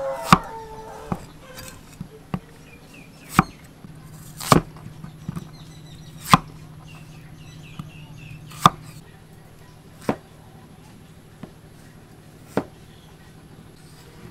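Large kitchen knife cutting through peeled potatoes and striking a thick round wooden chopping board: single sharp knocks at irregular gaps of one to two seconds, about nine in all.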